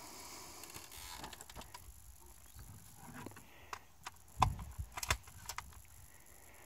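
Handling noises from an AR-style rifle being settled onto a shooting bench: a knock about four and a half seconds in, then a few sharp clicks over the next second and a half.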